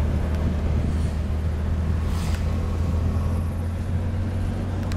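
Steady low engine and tyre rumble heard from inside a Mercedes-Benz car's cabin as it drives down a mountain road, with a brief hiss about two seconds in.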